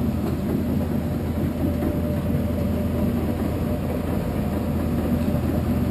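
A heavy engine running steadily at an even speed, a low constant hum with no change in pitch.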